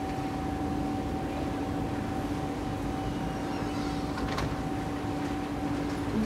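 A steady machine hum with two held tones, one low and one higher. The higher tone stops shortly before the end and the lower one right at the end.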